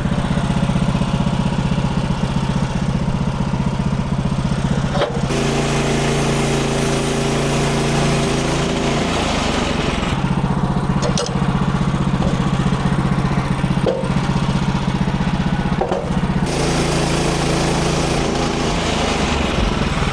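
Gas engine of a Woodland Mills HM130 Max portable band sawmill running steadily, its note changing about five seconds in and again about sixteen seconds in, with a few light knocks along the way.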